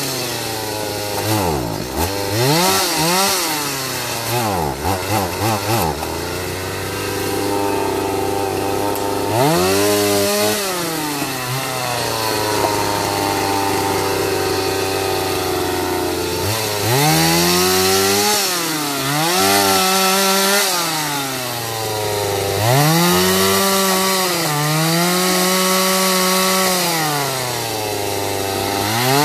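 Chainsaw cutting a felled jackfruit trunk into rounds: the engine revs up and drops back to idle over and over, sometimes held at high revs for several seconds at a time while it cuts.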